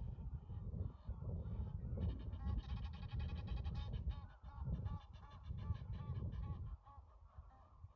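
A bird calling in a rapid series of short nasal notes, about three or four a second, for roughly four seconds, over a steady low rumble.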